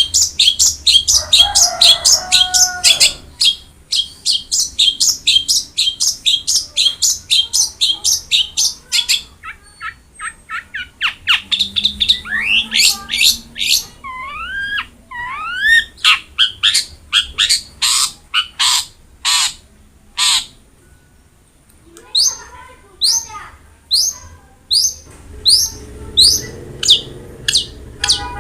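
Long-tailed shrike singing: fast runs of sharp, high repeated chirps several a second, broken about halfway by a few rising whistled slurs and a short pause, then picking up again.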